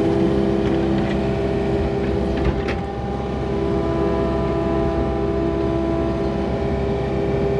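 Yanmar excavator running under load as its boom and bucket dig, heard from inside the cab: a steady engine rumble with a constant whine over it. A short knock about two and a half seconds in.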